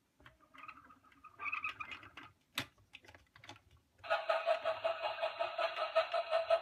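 Light plastic taps and a sharp click as toy figures are handled in a plastic toy train. About four seconds in, a steady electronic tone starts, pulsing rapidly.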